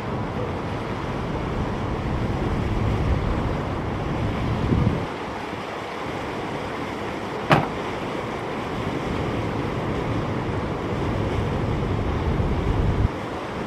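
Steady rush of water from a passing boat's wake, with wind buffeting the microphone in low rumbling gusts. A single sharp click about halfway through.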